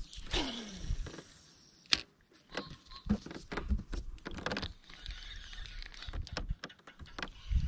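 Scattered clicks and knocks from a spinning reel and rod being handled in a kayak, with one sharper knock about two seconds in. Near the start a low sound slides down in pitch for about half a second.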